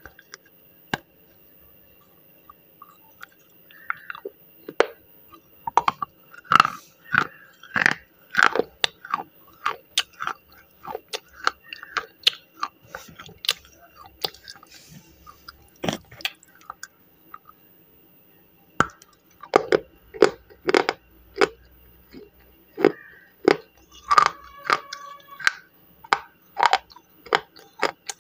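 Slate pencil being bitten and chewed: a run of sharp, brittle crunches and clicks. They come thickest about six to nine seconds in and again from about twenty seconds on, with sparser crunches in between.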